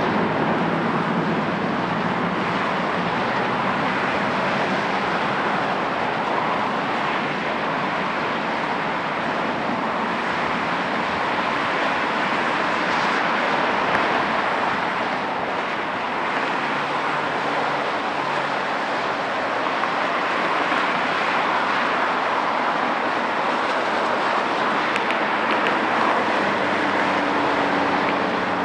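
Jet engine noise from an Airbus A330-243, its Rolls-Royce Trent 700 turbofans, as it climbs out after takeoff: a steady, even rushing noise that holds its level throughout.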